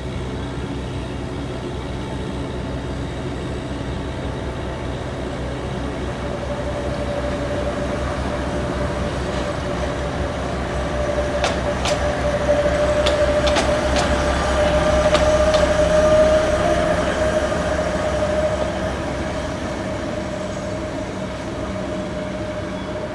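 Alishan Forest Railway train running on the rails: a steady low rumble with a drawn-out high whine that grows louder and rises slightly toward the middle, and a cluster of sharp clicks around the middle.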